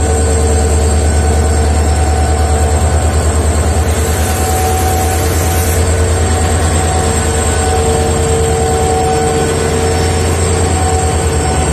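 Indian Railways diesel locomotive's engine running as the locomotive rolls slowly past, a deep pulsing throb with a steady whine above it.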